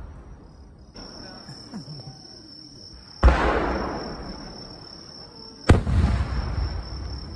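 Aerial firework shells bursting: a softer thud about a second in, then two loud booms about two and a half seconds apart, each followed by a long rolling echo. A steady high chirring of insects runs behind.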